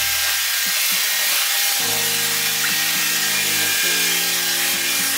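High-pressure washer wand spraying a steady jet of water onto a car's body, a constant hiss, with background music underneath.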